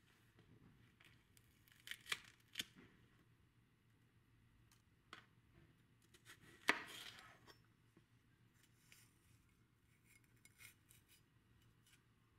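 Sparse, light clicks and taps of kitchen utensils being handled during food preparation, the sharpest about six and a half seconds in with a short scrape after it.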